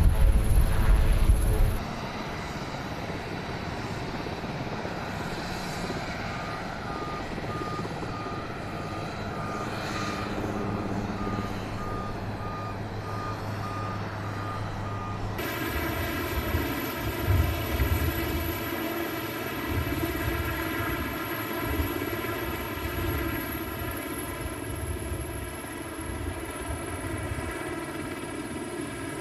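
Sikorsky VH-3D Sea King presidential helicopter running its twin turbine engines and rotors. It is loud and low for the first two seconds, then quieter and more distant. From about halfway it settles into a steady, many-toned turbine whine that holds to the end.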